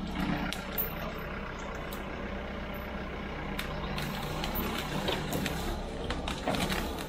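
Diesel engine of a yellow boom-equipped heavy machine running steadily while the boom works in the trees, with scattered knocks and cracks over the engine hum.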